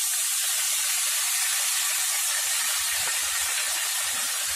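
Yogurt-marinated mutton sizzling steadily as it goes into hot oil in a non-stick pan. From about halfway, soft irregular knocks of the spatula and bowl against the pan.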